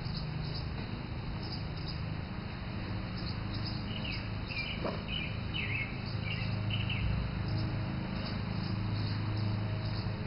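Birds chirping: a run of short downward chirps from about four to seven seconds in, with scattered fainter high chirps, over a steady low hum.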